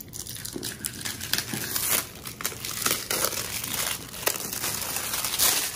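Clear plastic shrink wrap crinkling and crackling irregularly as it is torn and peeled off a cardboard product box by hand.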